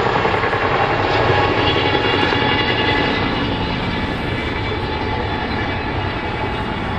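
Boeing Chinook twin-rotor helicopter in flight: the rapid beat of its rotor blades over the steady whine of its turbine engines, growing slightly fainter after about three seconds.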